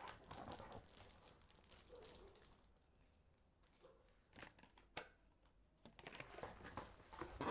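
Faint, intermittent rustling and crinkling of packaging as a wireless keyboard is taken out of its cardboard box, with a sharp tap about five seconds in and busier rustling near the end.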